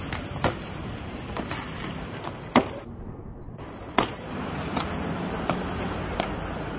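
An acrobat's hands and feet slapping on paving stones in a few sharp, irregular hits, over steady outdoor street noise.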